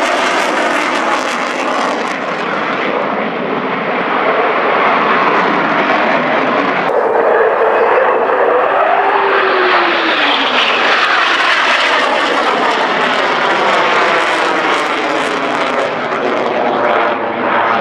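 Eurofighter Typhoon's twin Eurojet EJ200 turbofans in afterburner: a loud, continuous jet roar. Around the middle, a whine within it glides in pitch as the jet passes.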